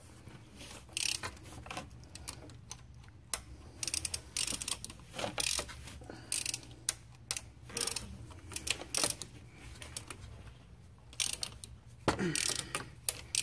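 A hand ratchet clicks in short, irregular bursts as the E12 inverted-Torx bolts on a stock crankshaft vibration damper are worked loose.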